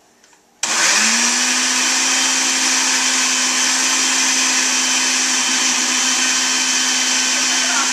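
A countertop blender with a glass jar switches on about half a second in. Its motor comes up to speed at once and runs steadily with an even hum, blending a load of spinach, banana and coconut milk.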